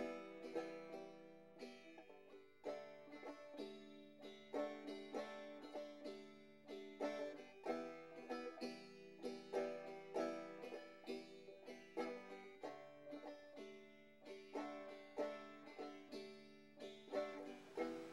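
Quiet background music on a plucked string instrument: a quick, even run of picked notes.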